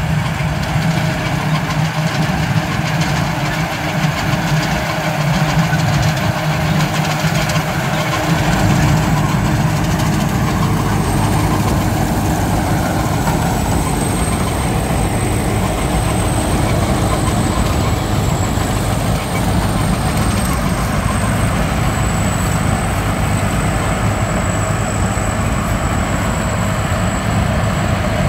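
Crawler rice combine harvester's engine running steadily as the machine drives across the field, with a thin high whine coming in about ten seconds in.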